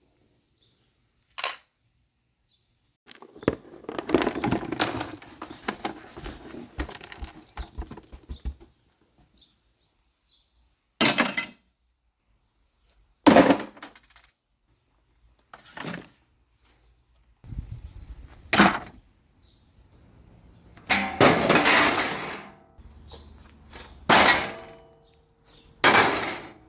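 Scrap metal clattering and crashing in a series of separate short bursts, with a longer stretch of rattling about three to eight seconds in.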